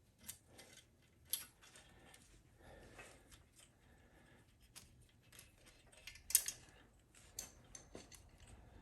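Faint rustling and scattered light clicks of wiring-harness wires and plastic connectors being handled and fed through a motorcycle frame, with sharper clicks about a second and a half in and just past six seconds.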